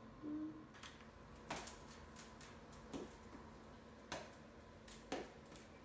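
Light, sharp clicks and taps, irregular and about one a second, from a small plastic toy being handled and swung.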